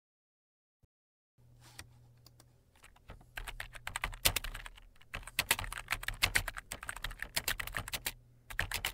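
Fast typing on a computer keyboard: a few scattered key clicks starting about a second and a half in, then a dense run of clicks from about three seconds, with a short pause near the end, over a low steady hum.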